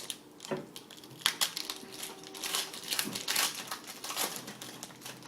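A 2010-11 Upper Deck SP Authentic hockey card pack's wrapper being torn open and crinkled by hand, an irregular run of crackling and crumpling.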